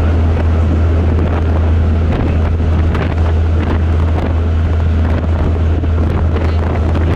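Engine of a cargo barge under way, a loud, steady deep drone, with wind buffeting the microphone.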